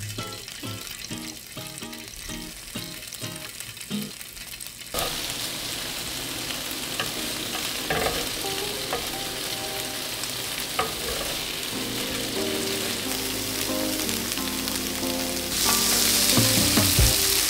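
Acoustic guitar music, then from about five seconds in diced tofu frying in olive oil in a grill pan: a steady sizzle under the music, growing louder near the end.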